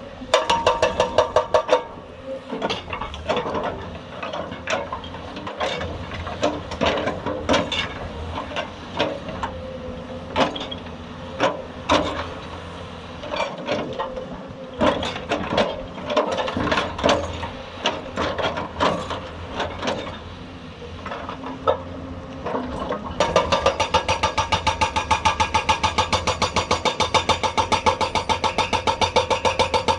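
Hydraulic rock breaker on a Hyundai 290 excavator hammering rock in rapid, evenly spaced blows: a short run at the start and a long unbroken run from about two-thirds of the way through. In between come irregular knocks and clatter over the excavator's running engine.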